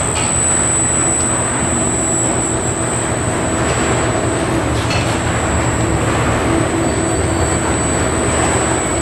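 A stainless steel ribbon and paddle mixer running under its 5 hp drive, a steady mechanical hum with a constant low tone that does not change in speed.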